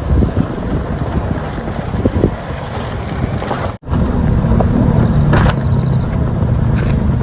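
Wind buffeting the microphone as a loud low rumble, broken by a sudden cut-out about four seconds in. After the cut-out, a steady low hum continues under the rumble.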